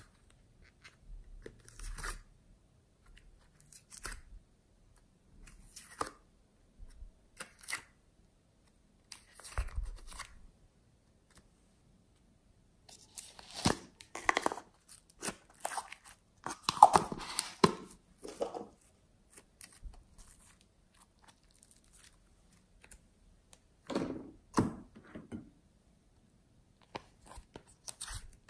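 Hands working glossy slime: short sticky, crackly, tearing sounds as it is pressed, stretched and pulled apart. They come in separate spells with quiet gaps, at first only one short sound every two seconds or so, then thicker and louder in the middle.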